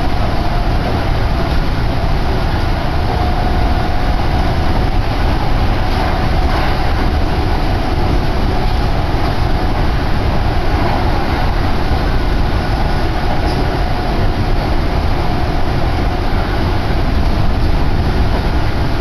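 Steady running noise inside a Kintetsu electric train car at speed: wheels rumbling on the rails, with a faint steady whine over it.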